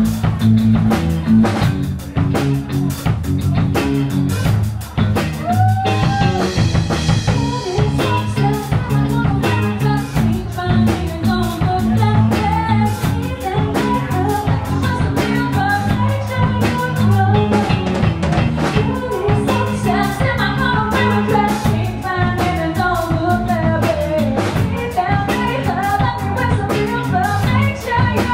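Live rock band playing: a woman singing lead over electric guitar, electric bass and drum kit. The voice comes in about six seconds in, after a short instrumental stretch.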